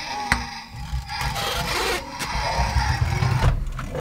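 A toy camper van's plastic wheels rolling and scraping across a tabletop as it is pushed along, in two rough, rumbling stretches, with a sharp click shortly after the start.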